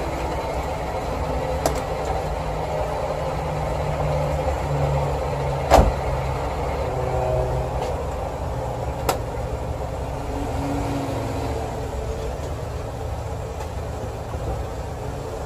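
Daihatsu Ceria's engine idling steadily, with a single loud thump about six seconds in, fitting the car door being shut, and a lighter click a few seconds later.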